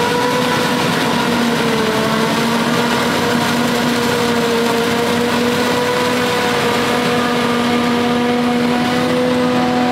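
Heavy farm machinery running steadily during corn silage harvesting, a continuous engine drone with a steady pitch that wavers slightly about two seconds in.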